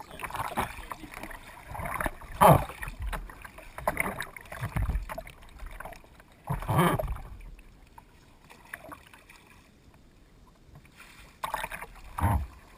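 Kayak paddle strokes: the blades dipping and pulling through the water in a series of separate splashes, the loudest about two and a half seconds in. There is a quieter gap in the second half before two more strokes near the end.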